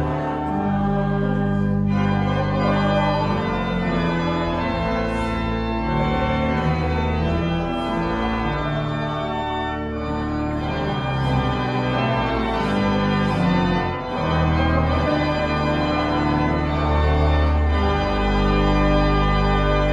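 Organ playing slow, sustained chords over held bass notes, the chords changing every second or two.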